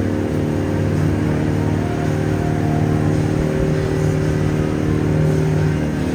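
The river boat's engine running steadily while under way, a constant hum with no change in speed.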